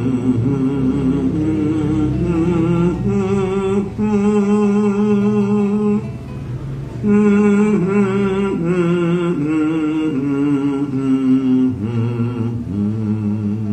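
A man humming a vocal warm-up exercise with closed lips, as a basic voice-building drill. He holds long notes with vibrato that step up in pitch over the first few seconds, breaks off briefly about six seconds in, then steps back down.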